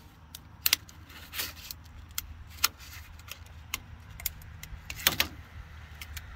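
Plastic blister packaging of a small screwdriver kit crackling and clicking as it is pried and torn open by hand. Irregular sharp clicks, the loudest at about one, two and a half and five seconds in.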